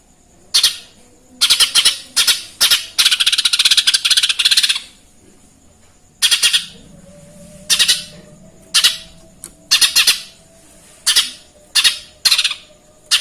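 A cucak ijo mini (leafbird) singing loud, sharp chirps in quick clusters, its song filled with mimicked Eurasian tree sparrow (burung gereja) calls. About three seconds in, one longer, rapid chattering phrase runs for nearly two seconds.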